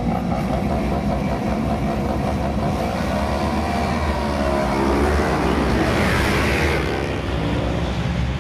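A grid of road-racing motorcycles revving, then launching away together at a race start. Several engines rise in pitch as the pack accelerates, about three to six seconds in.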